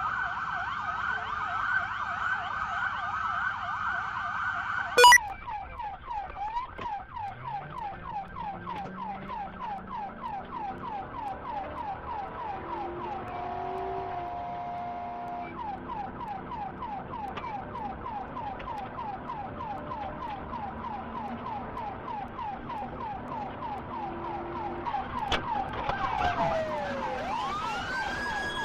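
Police car siren sounding continuously, changing modes: a fast warble for the first few seconds, a sharp click about five seconds in, then a rapid yelp cycling several times a second, and slow rising and falling wail sweeps near the end.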